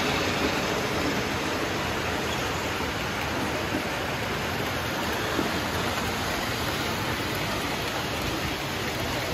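Steady, even rumble and hiss of O-scale toy trains running on the layout's metal track.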